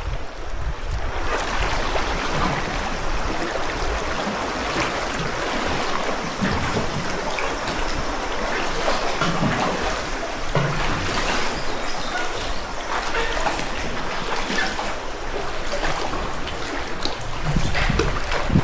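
Sea water splashing and trickling close by a sea kayak, with a steady dense wash of small splashes.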